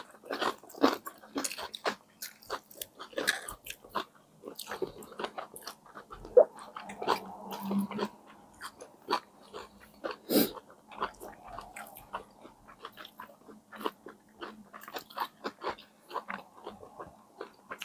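Two people chewing and biting into soft brioche bun sandwiches of ham, egg and cheese, picked up close on clip-on microphones: irregular wet mouth clicks and smacks, with no steady rhythm.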